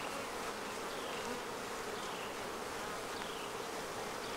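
Honey bees buzzing in the air around their hive: a steady drone of many wings. A few faint, short, falling chirps sound above it.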